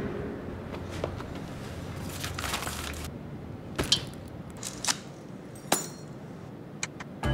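Cloth backpack set down with a rustle, then a ring of metal keys clinking as it is put down, heard as a few sharp clicks about a second apart.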